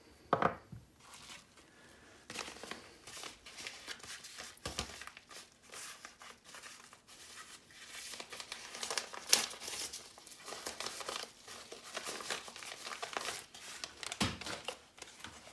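Irregular plastic clicking, crackling and scraping as the plastic housing of a Lexus GX460 door lock actuator is pried open by hand and its small motor worked out, with a sharp knock about half a second in and another near the end.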